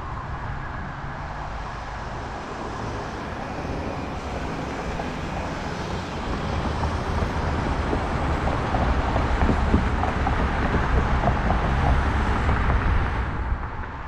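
Road traffic noise mixed with wind rumbling on the microphone, growing louder through the second half and dropping off near the end.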